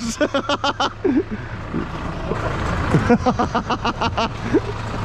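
Farm tractor's diesel engine running steadily, with men's voices calling out indistinctly over it.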